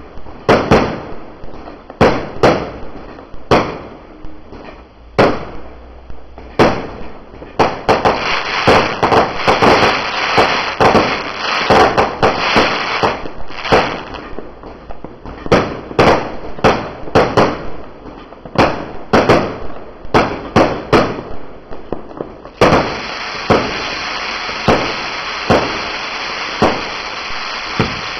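Low-noise 1.4G consumer fireworks going off: a continual run of sharp pops and cracks, one to two a second, with no big bangs. Dense hissing and crackling swells in the middle, and near the end a steady hiss comes in suddenly under the pops.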